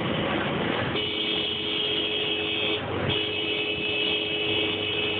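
A horn sounding in two long steady blasts, the first about two seconds long and the second starting about three seconds in and still going at the end. Under it is a constant noise of road, crowd and engines.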